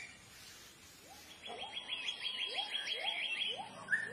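Forest animal calls: a rapid high trill of about a dozen short notes starting about a second and a half in, over short rising calls repeating about twice a second.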